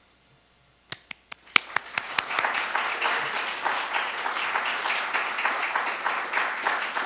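Audience applause: a few separate claps about a second in, quickly swelling into steady clapping from about two seconds in.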